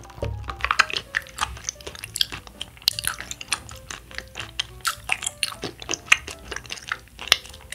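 Close-miked wet chewing of chewy tapioca pearls from brown-sugar bubble tea: many quick mouth clicks and smacks, with soft music underneath.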